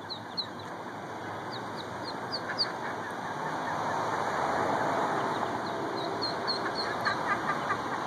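Mallard ducklings peeping: runs of short, high, downward-sliding peeps that come in several bursts, over steady background noise.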